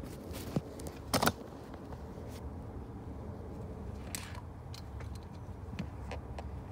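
Hand tools being handled: a few short metallic clicks and clinks, the loudest a quick double click about a second in, over a steady low background rumble.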